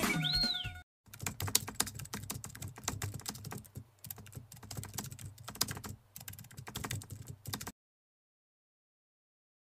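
Computer-keyboard typing sound effect accompanying text typed out on screen: rapid, uneven key clicks for about seven seconds. Before it, dance music cuts off within the first second.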